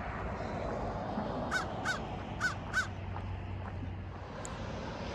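A crow cawing four times, in two quick pairs starting about a second and a half in, over steady background noise.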